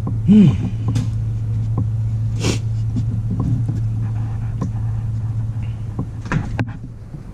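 A steady low hum, with a few separate clicks and knocks as old spark plug wires are worked loose from the engine and pulled free.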